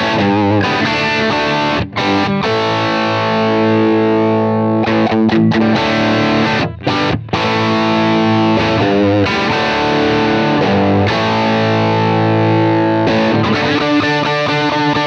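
Electric guitar played through a Universal Audio UAFX Lion '68 Super Lead amp pedal in its Super Lead mode, with the emulated 4x12 greenback cabinet, giving a Marshall Plexi-style tone with light overdrive. Chords are struck and left to ring, with short breaks between them, and quicker picked notes near the end.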